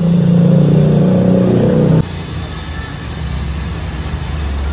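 An engine running loudly and steadily close by, cutting off suddenly after about two seconds, then a lower steady rumble.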